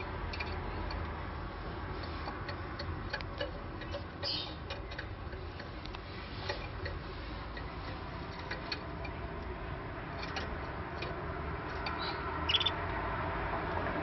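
Caged canaries making sparse, short chirps and clicks over a steady low hum, with a brief burst of higher call notes about four seconds in and another near the end.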